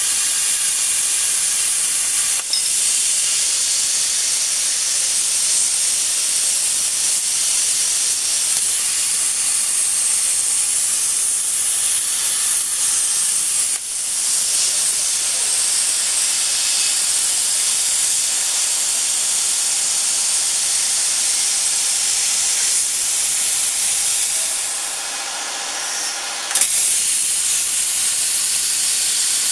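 Plasma cutting torch of a portable CNC plasma cutter hissing steadily as it cuts steel. It goes quieter for about two seconds near the end, then comes back with a sudden sharp crack.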